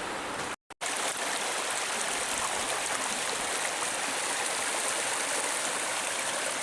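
Water rushing and splashing steadily over rocks at a waterfall stream, cutting out for a moment under a second in.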